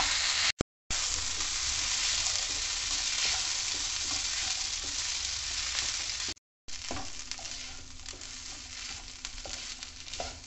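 Mixed vegetable stuffing of corn, carrot, beans and grated potato sizzling in a non-stick frying pan while a wooden spatula stirs and scrapes through it. The sound cuts out briefly twice; after the second break the sizzle is softer and the spatula's scrapes stand out more.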